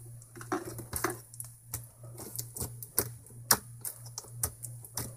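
Clicky clear-base slime with fishbowl beads being poked and pressed by hand, giving a run of sharp, irregular clicks and pops, several a second.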